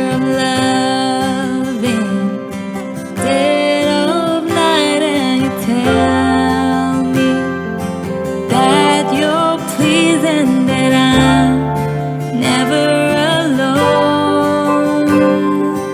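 Music: a voice singing a slow melody over strummed acoustic guitar.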